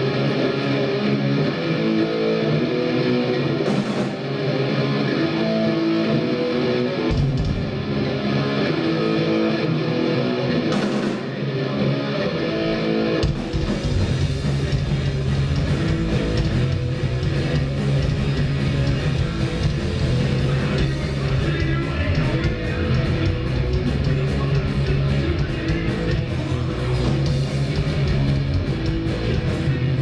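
A punk rock band soundchecking through the PA: electric guitar riffs with a few single hits on the kit at first, then about thirteen seconds in the bass and drums come in fully and the whole band plays an instrumental passage.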